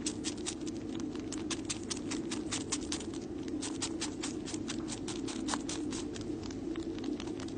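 Tabby kitten suckling on its own paw: a fast, even run of small wet clicks, about six a second, over a steady low drone.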